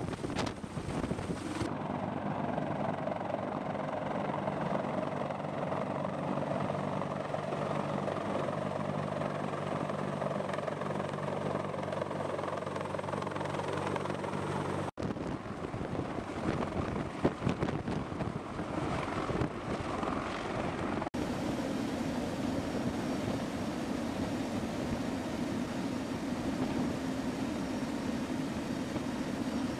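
CH-53 heavy-lift helicopter running steadily as it hovers and flies with a Humvee slung underneath, its rotor and turbine noise continuous. The sound changes abruptly about 2, 15 and 21 seconds in, where different shots are spliced together.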